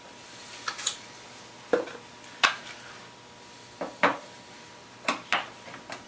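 Small magnets and metal parts being set by hand on a model milk-car platform's metal base: about nine sharp clicks and clinks, several in close pairs.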